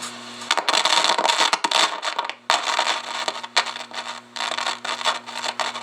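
Old Atlas AM CB base station's speaker giving a steady low hum, with loud scratchy crackling noise that cuts in about half a second in and keeps breaking off and returning.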